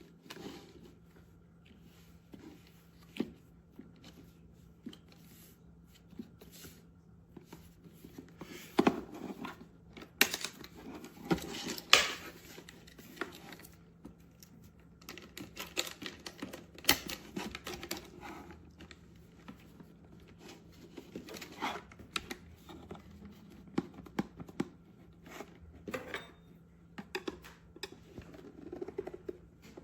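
Irregular clicks, taps and rustling of small objects being handled, over a faint steady hum.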